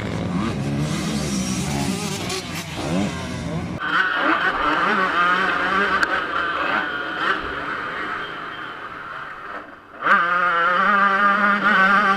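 Motocross bikes racing past, several engines revving at once. After about four seconds it becomes a single Yamaha YZ125 two-stroke heard close up from on board, revving hard and rising and falling with the throttle. Near the ten-second mark the throttle is briefly shut, then snapped wide open again.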